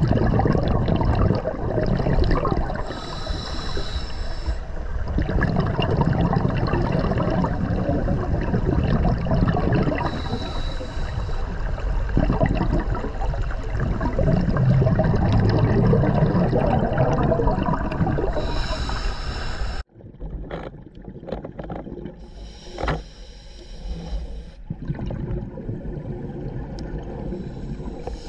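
Underwater audio of scuba diving, heard through a camera housing. Steady rushing water noise is broken every several seconds by a burst of exhaled regulator bubbles. About two-thirds of the way in, the sound drops abruptly and becomes quieter, with a few sharp clicks.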